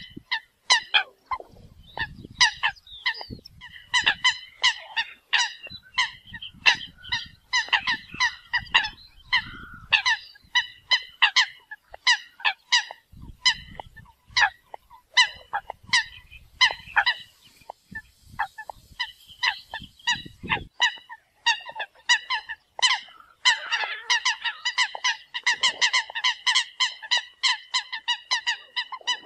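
Eurasian coots calling: a rapid run of short honking calls, several a second, which crowd together and overlap in the last few seconds.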